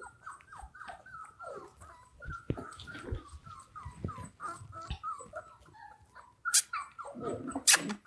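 Five-week-old German Shorthaired Pointer puppy whimpering in a rapid string of short, high, falling whines. Two sharp clicks near the end.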